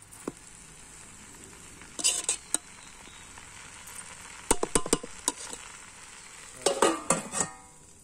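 Metal spoon stirring jackfruit bhaji in a large metal pot, clinking and scraping against the pot in three short bursts over a low steady hiss. Near the end a steel plate set on the pot as a lid rings briefly.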